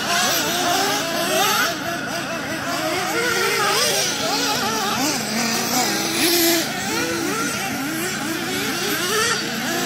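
Several radio-controlled off-road cars racing, their small motors revving up and down in many overlapping rising and falling whines.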